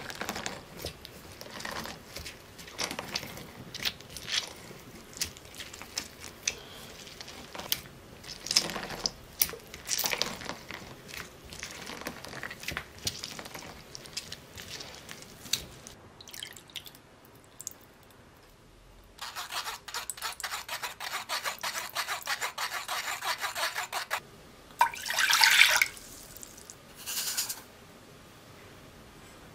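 Lemon halves pressed and twisted on a glass reamer juicer, with irregular wet squishing and juice dripping. Later comes a run of fast, even crackling lasting about five seconds, then two short louder bursts.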